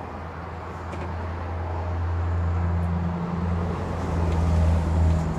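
A motor vehicle's engine running: a steady low hum that grows gradually louder.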